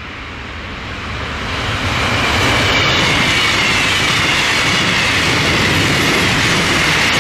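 Electric regional passenger train passing at speed. The rumble grows as it approaches, then about two seconds in settles into a loud, steady rush of coaches going by, with faint high tones slowly falling in pitch.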